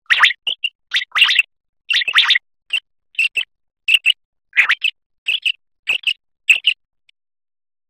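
Common quail calling: a series of short, sharp chirped notes, some in quick groups of two or three, repeated about every half second to second and stopping near the end.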